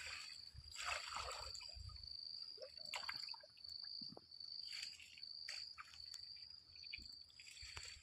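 Insects droning steadily at a high pitch, with brief scattered splashes and rustles in shallow water.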